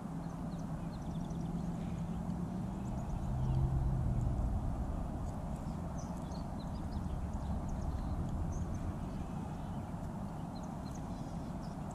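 Small birds chirping now and then in short, high notes over a steady low rumble that swells about three to five seconds in.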